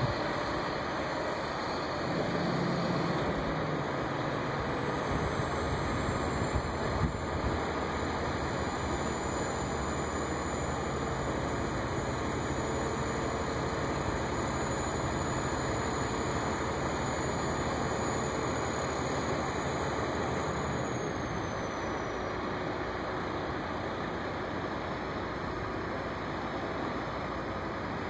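Crane truck's engine running steadily, powering the boom as it holds a rooftop HVAC unit in place.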